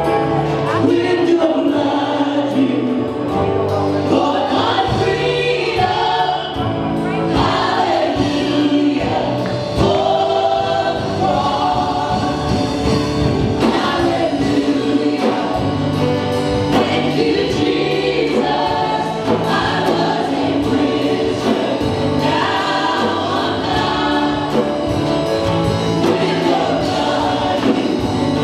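A gospel choir and worship team singing with band accompaniment, a man's voice leading on microphone over a steady beat.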